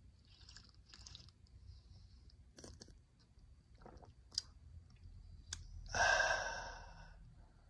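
A man sipping from a travel mug, with faint slurps and a few small clicks of swallowing and lip-smacking. About six seconds in, he lets out a breathy open-mouthed "ahh" that lasts about a second and fades.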